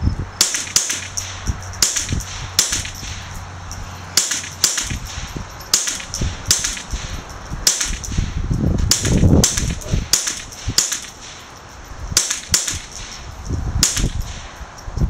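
AR-style semi-automatic .22 Long Rifle firing a rapid string of sharp cracks, one to two shots a second with a couple of short pauses. A low rumble sits under the shots near the middle.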